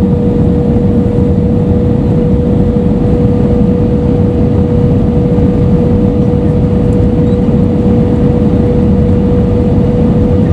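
Airbus A320 cabin noise heard at a window seat over the wing on approach with flaps extended: a loud, steady rush of airflow and jet engine noise with a constant hum tone running through it.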